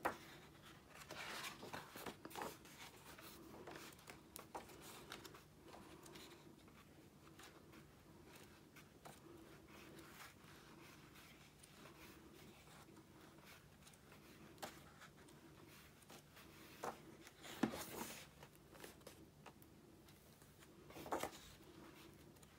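Pages of a large book being turned by hand: faint paper rustles and soft flicks, with two louder page turns in the second half, over a low steady hum.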